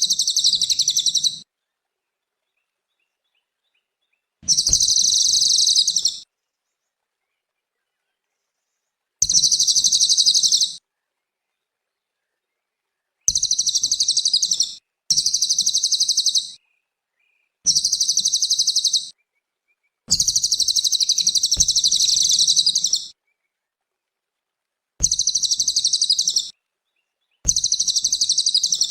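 Cililin songbird singing in repeated high-pitched bursts of rapid chattering song, each one to two seconds long with one longer phrase of about three seconds past the middle, about nine bursts in all, separated by silent gaps.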